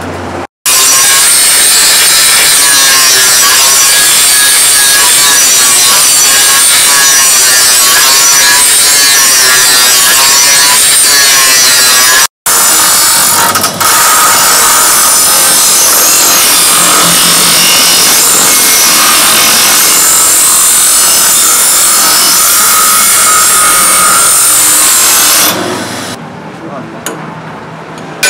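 A motor-driven grinding wheel grinding the steel billhook blade: a loud, continuous abrasive grind, broken by two brief cuts. Near the end the grinding stops and gives way to quieter metal clicks and clinks.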